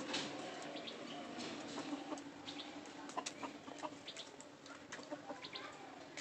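A rooster clucking in short, low calls, among scattered sharp ticks and rustles from the dry leaves it is foraging in.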